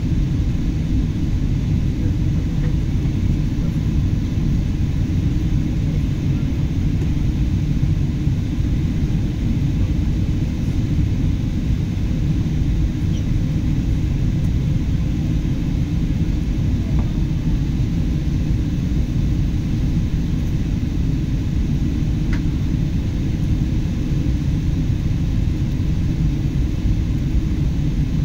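Steady low rumble inside a Boeing 747-8's cabin on final approach: the GEnx engines and the airflow over the fuselage heard from a window seat over the wing. The sound is even throughout, with no change in pitch or level.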